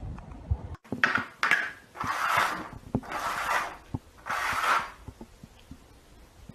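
Small plastic cups being slid and shuffled across a hard floor: five scraping slides, each about half a second long, with light taps as cups are set down, then a few faint taps near the end.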